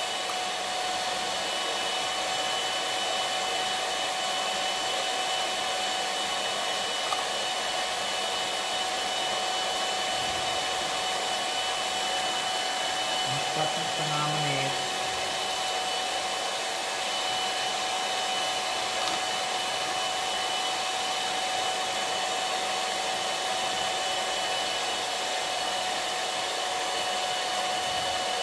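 Electric hand mixer running steadily, its pitch unchanging, its beaters whipping instant cappuccino, sugar and hot water into dalgona foam in a small glass jar.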